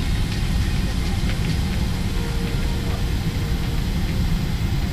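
Steady low rumble of airliner cabin noise inside a Boeing 777-300ER.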